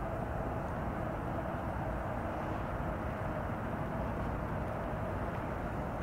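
Plasser & Theurer track-construction machine running, a steady mechanical rumble with a faint steady whine in it.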